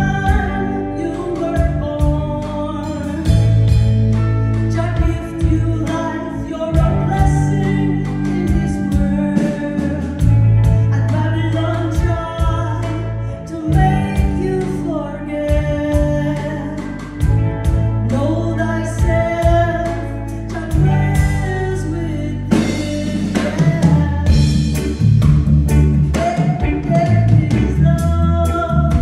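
Live reggae band: a woman singing into a microphone over electric guitar and drum kit, with a steady low bass line.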